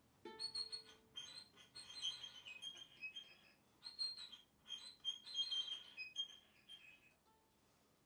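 Violin and viola duo playing thin, very high tones in quick, broken flurries that flicker on and off, with a short lower held note near the start; the playing dies away about seven seconds in.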